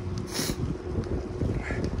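Wind rumbling on the microphone while a road bike is pushed uphill, with a short hiss about half a second in and a brief high squeak from the bike near the end: the odd noise the rider hears from the bike since a crash.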